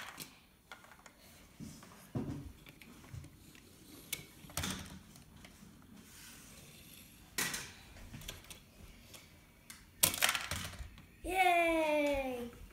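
Plastic Lego pieces clicking and knocking on a wooden table as they are handled, in a few sharp clicks a second or two apart, the strongest about ten seconds in. Near the end a child's voice makes one long sound, falling in pitch, for just over a second.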